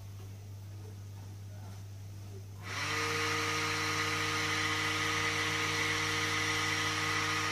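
Homemade cooling fan with a sheet-metal blade, its small motor switched straight onto 12 volts with no resistor, starting about two and a half seconds in. It spins up quickly, then runs with a steady, way-too-loud whine and whir. A low steady hum sounds underneath throughout.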